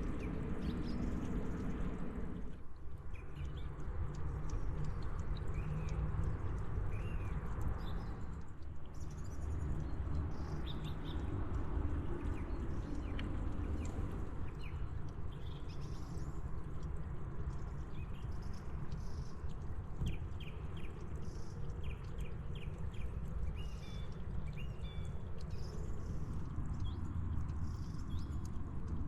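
Small birds chirping in short calls now and then, including a few quick runs of chirps, over a steady low outdoor rumble.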